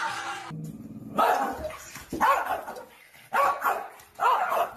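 A small dog barking four times, about a second apart; each bark is short, with a pitch that rises and falls.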